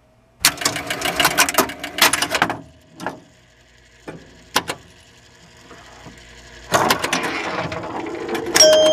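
Rapid mechanical clicking and rattling in two dense runs, with a few single clicks between them. Steady electronic tones come in near the end.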